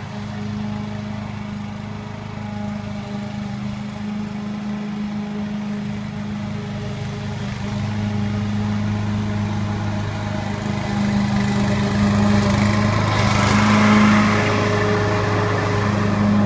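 Greenfield rotary lawn mower's Briggs & Stratton 850 I/C single-cylinder four-stroke engine running at a steady speed while cutting grass. It grows louder as the mower comes up close and is loudest about fourteen seconds in, with added hiss as it passes.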